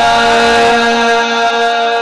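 A male naat reciter holding one long, steady sung note.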